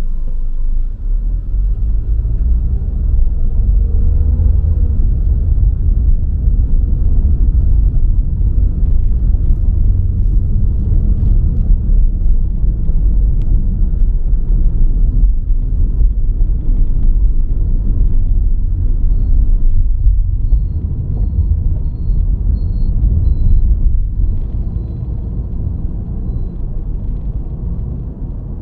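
Car driving on a road: a steady low rumble of engine and road noise that eases slightly now and then.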